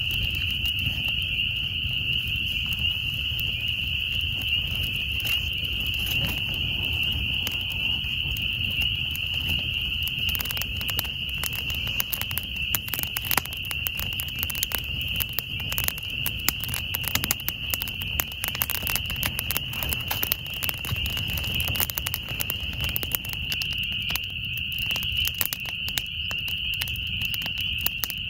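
A dense chorus of spring peepers, their high peeps blending into one continuous shrill ring. Scattered sharp clicks and pops join in from about ten seconds in.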